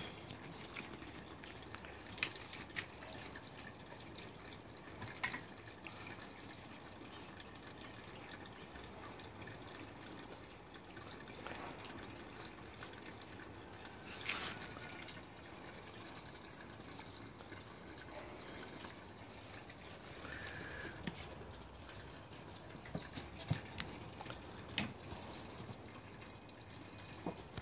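Faint, irregular watery drips and small clicks on a background of low hiss.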